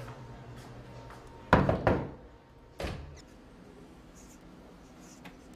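A wooden door banging: a quick run of loud thuds about a second and a half in, then one more bang about a second later.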